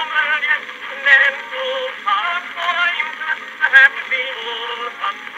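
Edison cylinder phonograph playing a vocal record through its trumpet horn: a singer with strong vibrato, in the thin, narrow-range sound of an acoustic cylinder recording, with no bass.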